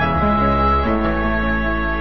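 Slow, sad background music of held chords over a low bass, the notes changing about once a second.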